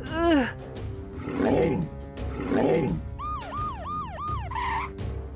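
Two rough growls, like a dinosaur roaring, then a quick cartoon siren wailing four times in rising-and-falling whoops.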